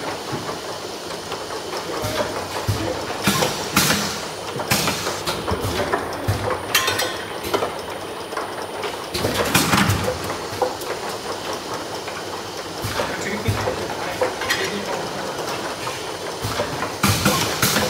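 Bottle filling and heat-sealing machine running, its conveyor and rotary star-wheel carrying plastic bottles that clatter against each other and the guide rails. There is a steady rattle with a number of sharp, irregular clacks as bottles knock together and are handled.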